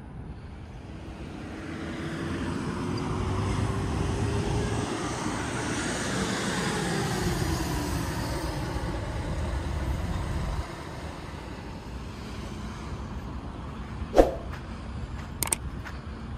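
A road vehicle passing by, its engine and tyre noise building and then fading, with the engine pitch falling as it goes past. The noise cuts off suddenly about ten seconds in. A few sharp clicks come near the end.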